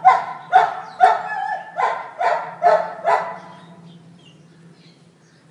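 A dog barking, about seven short barks in quick succession at roughly two a second, stopping a little after three seconds in.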